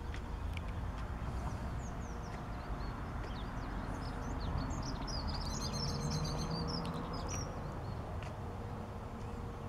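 Small birds chirping and twittering, busiest about halfway through, over a steady low rumble from a distant helicopter.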